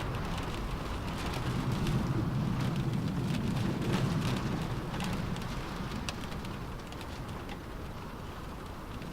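Rain falling on a car roof: many separate drops tap on the metal over a steady low rumble, easing slightly after about six seconds.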